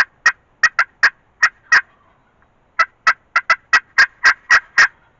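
Hen turkey calls made close by on a hunter's turkey call: two runs of short, sharp notes, about seven and then, after a second's pause, about nine coming quicker.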